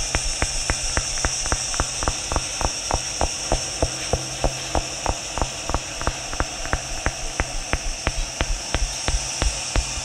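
Electroacoustic improvised soundscape: a steady train of sharp clicks, about six a second, over a low electrical hum and a high hiss.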